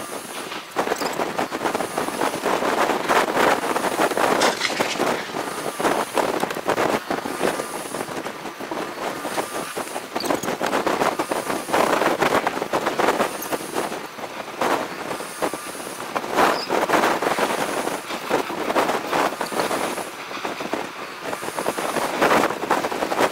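Gusty wind buffeting the microphone: a loud rushing noise with crackles that swells and fades every few seconds.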